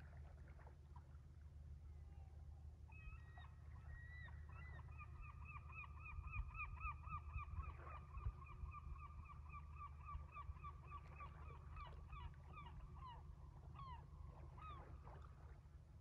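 Gull giving a long call: a faint, rapid series of repeated yelping notes that starts about three seconds in, runs for about ten seconds and ends in a few longer, drawn-out calls, over a low steady hum.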